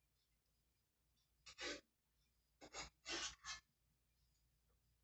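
A cat in labour licking herself: a handful of short, rasping licks and scuffs on the cloth, bunched in the middle, between near-quiet stretches.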